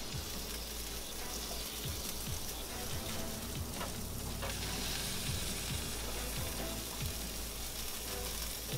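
Meat sizzling steadily in a hot pan on the stove.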